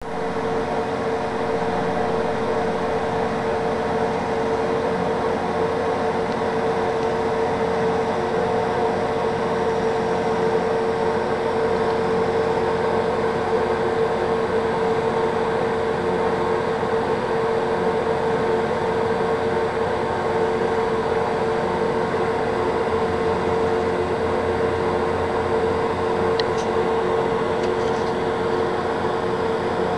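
Steady mechanical hum of reef aquarium pumps and filtration running, a strong mid-pitched drone over a constant hiss, with a couple of faint ticks near the end.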